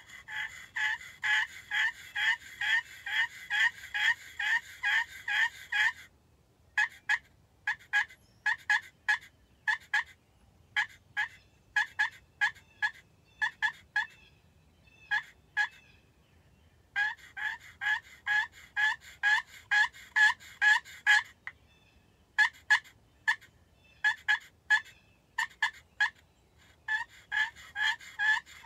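Pot-style friction turkey call worked with a striker, imitating a hen turkey: quick runs of yelps alternating with stretches of sharper, separated single notes.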